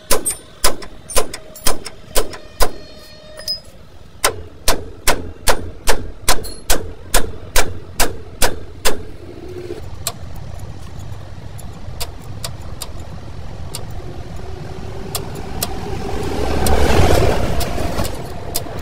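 Hammer blows on the steel of a truck's leaf spring hanger and shackle, about two a second and then faster, each with a short metallic ring. They stop about nine seconds in. A low rumble swells and fades near the end.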